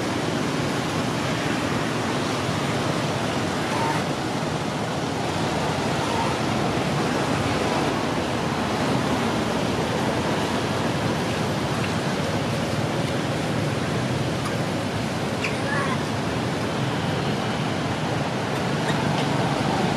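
Steady, even rushing hiss of outdoor noise, with a few faint short chirps near the end.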